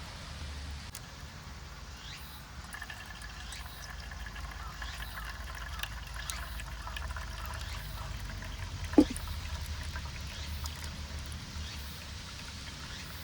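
Water being poured in a thin, steady trickle, with a single brief sharp sound about nine seconds in.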